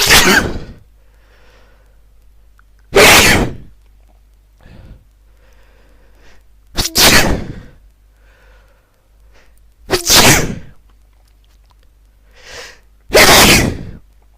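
A person sneezing five times in a row, about three seconds apart, with short, faint breaths in between.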